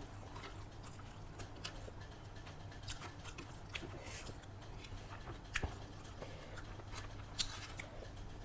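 Close-up eating sounds: a person chewing mouthfuls of chicken biryani, with scattered sharp clicks and small crunches. A faint steady low hum runs underneath.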